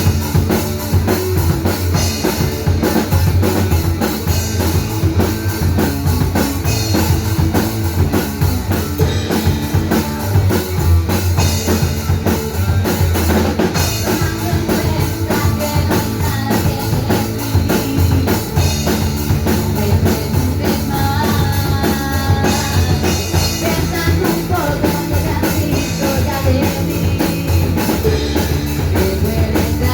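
Rock band playing live: a drum kit keeping a steady beat with kick drum and cymbals under electric guitar and a sustained low bass line.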